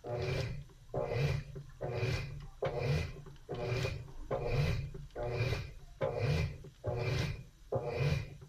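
Washing machine in its wash cycle, the agitator swishing the load back and forth in even strokes a little under one a second, each stroke with a motor hum and a wash of water and clothes, and a short pause between.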